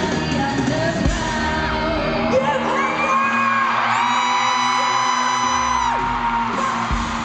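Live pop music from a female vocal group and band heard through a concert hall PA. About midway the bass and drums drop out while a singer holds one long high note, then the full band returns.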